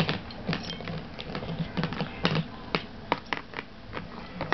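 Bull terrier puppy gnawing a rawhide chew: irregular sharp clicks and crunches of teeth on the hide, several a second.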